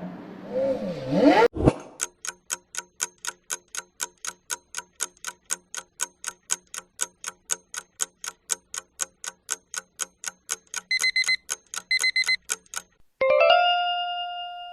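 Countdown timer sound effect: a clock ticking evenly about four times a second for some ten seconds, with two short beeps near the end, then a ringing chime as time runs out.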